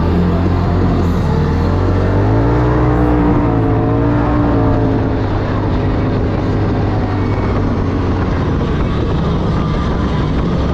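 Polaris RZR Turbo S side-by-side's turbocharged twin-cylinder engine running hard under load on sand. The revs rise and fall a few times about two to five seconds in, over steady wind and drivetrain noise.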